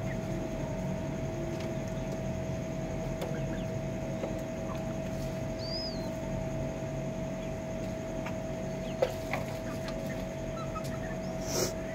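Faint scattered sounds from chickens, including a short high chirp about halfway through, over a steady hum with a constant tone. A single sharp click about nine seconds in.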